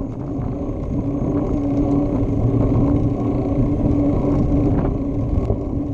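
Bicycle rolling along a concrete sidewalk, heard from a handlebar-mounted camera: steady rumble of wind and tyre noise with a steady hum and a few faint ticks.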